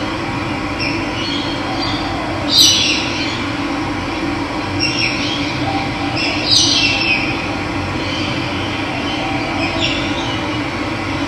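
A steady rush of running water with birds calling over it. The two loudest calls, brief downward-sliding cries, come about two and a half seconds in and again about four seconds later, with fainter calls between and near the end.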